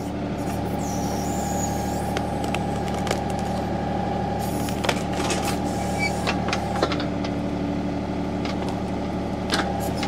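John Deere compact tractor's diesel engine running steadily, driving its hydraulics as the 270B backhoe bucket digs at a tree stump. A steady hydraulic whine drops away about seven seconds in and comes back near the end, and scattered knocks sound as the bucket works into the dirt and roots.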